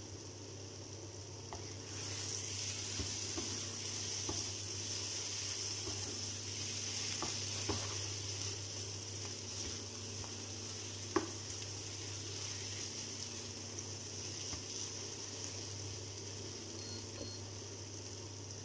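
Mashed eggplant and sardines sizzling in a nonstick frying pan, the sizzle growing louder about two seconds in. A utensil stirs the mixture, tapping and scraping against the pan now and then, with one sharp tap about eleven seconds in the loudest.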